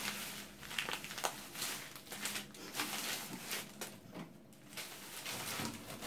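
A plastic bag of frozen food crinkling and rustling as it is handled, in irregular bursts.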